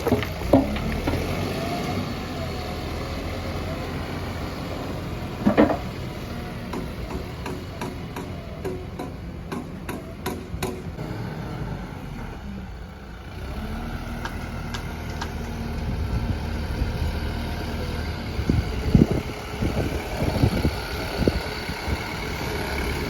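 Backhoe loader's diesel engine running steadily, easing off briefly about halfway and picking up again. A sharp knock comes about five seconds in, then a run of light clicks, and a cluster of clattering knocks near the end.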